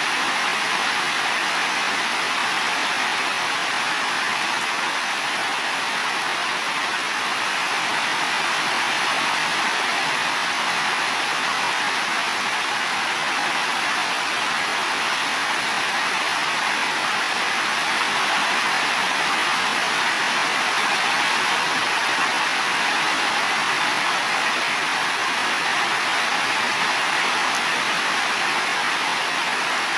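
Heavy rain falling steadily on building roofs, an even hiss with no breaks and no thunder.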